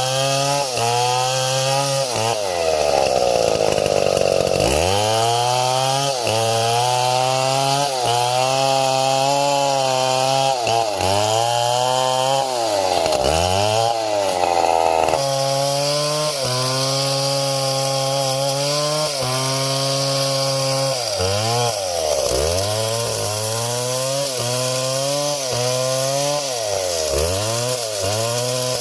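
Two-stroke chainsaw running at high revs while cutting wood. Several times its engine note drops away sharply and climbs back up as the throttle is eased off and opened again.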